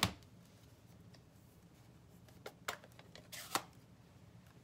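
Sharp clicks and taps of small craft supplies being handled: one loud click at the start, then a few lighter ones about two and a half to three and a half seconds in, over quiet room tone.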